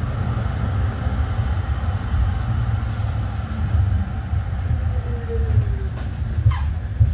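Tram running on its rails with a steady low rumble. Two short falling whines come near the end.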